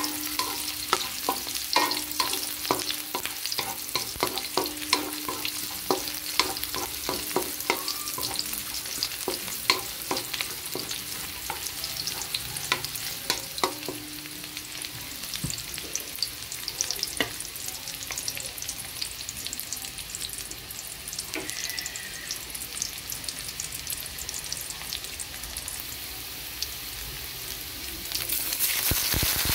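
Garlic and shallots sizzling in hot oil in a metal wok, with a wooden spatula stirring, tapping and scraping the pan through the first half. Near the end, sliced tomatoes drop into the oil and the sizzling grows louder.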